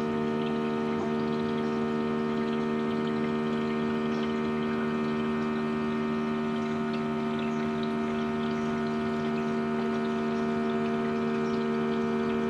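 Keurig K-Mini single-serve coffee maker brewing: its water pump hums steadily while the reservoir empties through the K-Cup, with a faint trickle of water.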